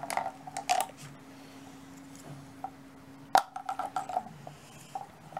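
Beyblade spinning tops whirring on a printed tray used as the battle arena: a steady hum that drops in pitch about four seconds in as a top slows. Short clinks come as the tops knock into each other and the rim, with a sharp clack about three and a half seconds in and a quick rattle of clinks after it.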